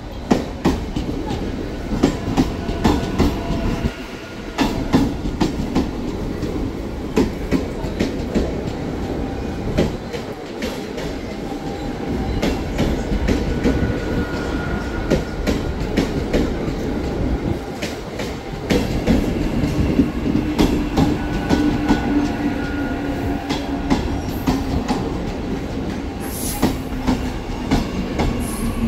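Train running through a station, its wheels clattering over the rail joints in a long, uneven run of clicks over a steady rumble. A low hum swells about two-thirds of the way through.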